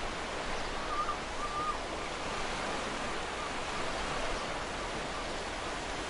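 Ocean surf washing steadily onto a sandy beach, an even hiss of breaking water. About a second in, a faint short wavering bird call sounds over it.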